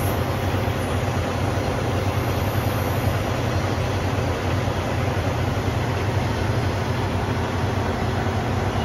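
Semi truck's diesel engine idling steadily, a constant low rumble.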